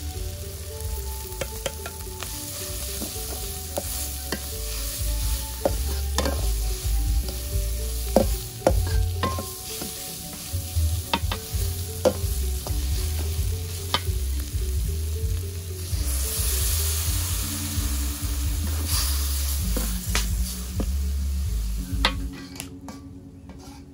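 Sliced bitter gourd stir-frying in an aluminium wok of chili spice paste: a steady sizzle, with a steel spatula scraping and knocking against the wok many times.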